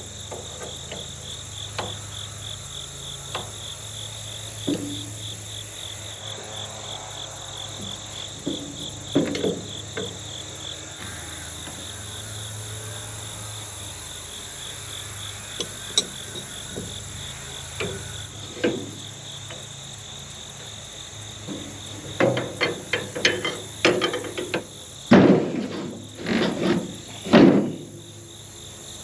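Insects chirping steadily in a fast pulsing trill, with scattered sharp clicks and knocks of a wrench working the hydraulic and AC line fittings on a tractor's condenser. From about 22 s on comes a run of louder metal knocks and clatter as the condenser is worked loose and slid out.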